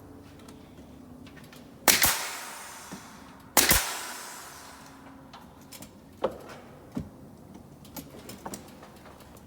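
Two loud sharp shots about a second and a half apart, each trailing off in a brief hiss, typical of a pneumatic nail gun driving fasteners into wall framing; lighter taps and clicks follow in the second half.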